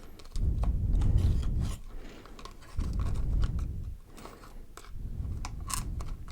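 Hands unpacking a mini slime kit's packaging: crackly scratching and clicking of paper and plastic being handled, with low swells of sound about every two seconds.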